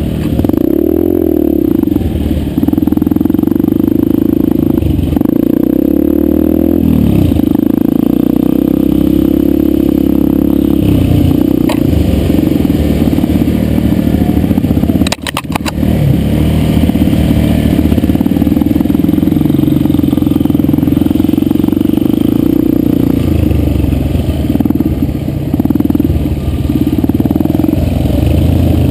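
Yamaha 125 dirt bike engine running close to the microphone, its pitch rising and falling with the throttle as it rides. About halfway through the engine drops out briefly, with a few sharp clicks.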